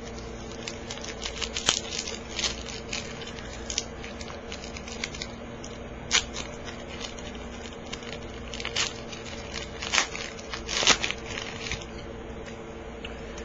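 A foil trading-card pack's wrapper crinkling and tearing as it is opened and the cards handled: irregular crackles and clicks, a few sharper and louder ones, over a faint steady hum.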